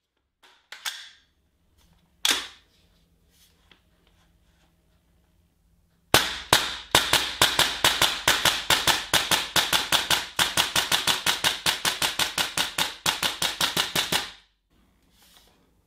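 Tokyo Marui MTR16 gas blowback airsoft rifle firing a long, rapid string of crisp shots, about five a second, each shot with the clack of the cycling bolt, typical of fast semi-automatic fire. Two single sharp clacks come a few seconds before the string starts.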